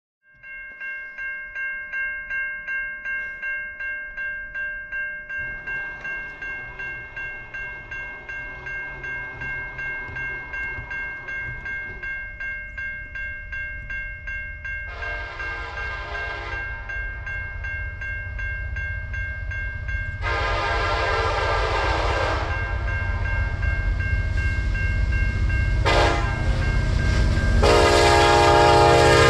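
Level-crossing bell ringing about twice a second, then a CN freight train's diesel locomotive horn sounding the crossing signal: long, long, short, long. Under it, the rumble of the approaching locomotives grows steadily louder.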